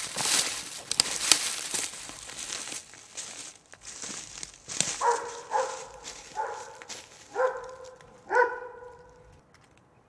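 Footsteps crunching and rustling through dry forest-floor litter, then a dog barks five times, the last bark the loudest.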